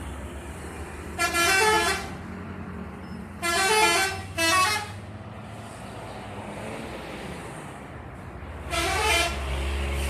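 Bus telolet horns, multi-trumpet musical horns, playing short tooting tunes that shift in pitch. There are four bursts: one about a second in, two back to back around the middle and one near the end. Under them is the low rumble of bus engines and street traffic.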